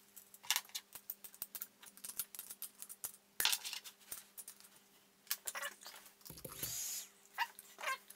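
Small clicks and taps of hands handling cables and plugging a connector into a diode laser engraver's laser head, over a faint steady hum. About six seconds in there is a louder sound lasting under a second.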